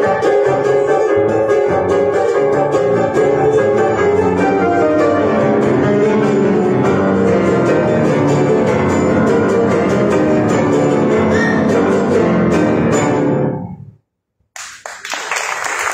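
Grand piano and jarana jarocha playing a son jarocho together. The music stops suddenly about two seconds from the end, and after a short silence the audience starts applauding.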